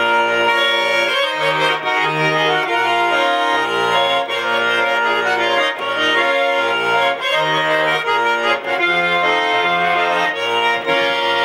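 Garmon (Russian button accordion) playing an instrumental interlude: a melody on the right-hand keys over evenly pulsing bass notes and chords.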